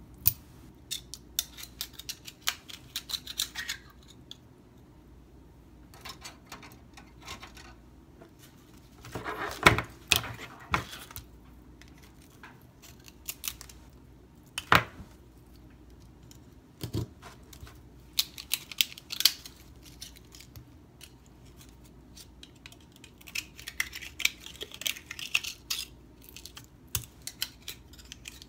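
Oyster knife scraping, prying and clicking against brittle Virginia Eastern Shore oyster shells, shell cracking as the knife twists it open. Bursts of rapid clicks and scrapes come and go, with a few sharper knocks.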